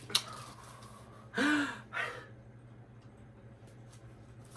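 A person gasps once, a short breathy intake with a brief voiced edge, about a second and a half in, after a small click near the start.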